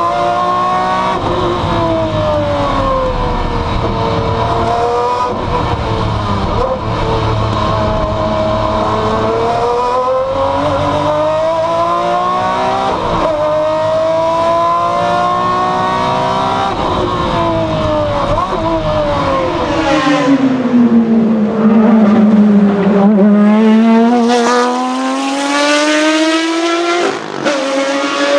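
Maserati MC12 Corsa's V12 race engine heard from inside the cockpit, revving up and down through gear changes and corners. About 20 seconds in, the sound changes to the same V12 heard from outside: its pitch drops as the car passes, then climbs as it accelerates away.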